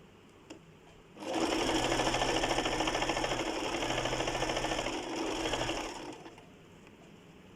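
Sewing machine stitching in one run of about five seconds, starting about a second in, with a fast even rhythm that eases briefly twice before it stops.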